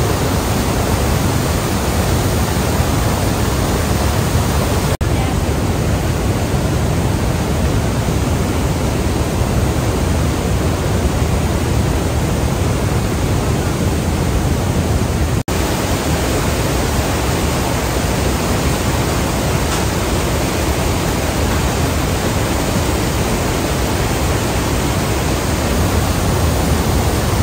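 Steady rushing of the Iguazú Falls, heavy water pouring down the cascades close by. It breaks off briefly twice, about five and fifteen seconds in, and is duller between those breaks.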